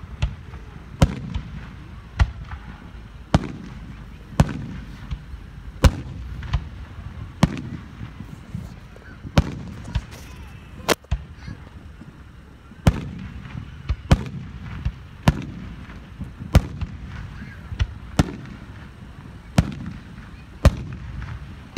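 Aerial firework shells bursting in a steady barrage: sharp bangs about every second or so, each trailed by a low rumbling echo.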